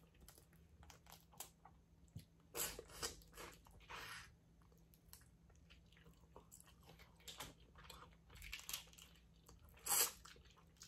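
Close-miked eating of a crawfish and mussel seafood boil: faint chewing and crunching with scattered small clicks, and a few louder short bursts about two and a half seconds in, at four seconds and near the end.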